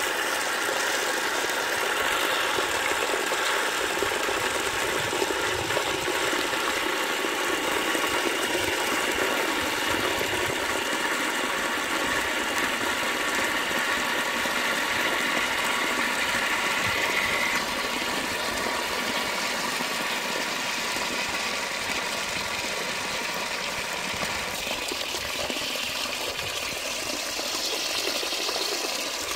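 Water jetting from a float valve into a cast iron cistern, a steady rushing hiss and splash as the tank fills. The tone of the rush shifts about two-thirds of the way through.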